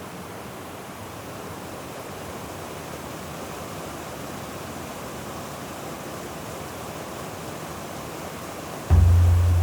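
A waterfall's steady rushing water. Near the end a loud, low deep note comes in suddenly over it, the start of background music.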